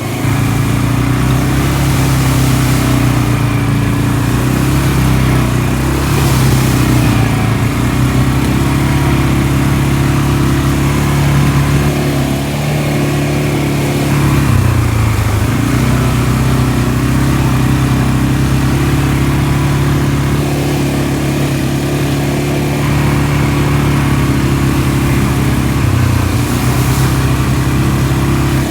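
ATV engine running under throttle while riding, holding a steady note. The revs drop briefly about halfway through and again near the end, then pick back up.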